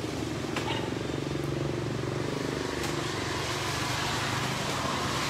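A motorcycle engine running steadily, a low even hum with a couple of faint clicks.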